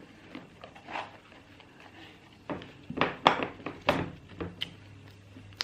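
A handful of sharp clicks and knocks from objects being handled, bunched between about two and a half and four and a half seconds in, over a faint low hum.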